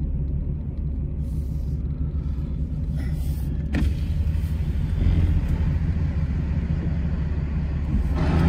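Diesel pickup truck's engine running, a steady low rumble heard from inside the cab, with a single click a little before four seconds in.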